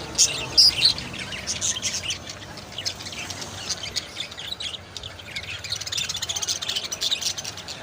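Many small caged birds chirping together: a dense, overlapping chatter of short, high calls with no pause.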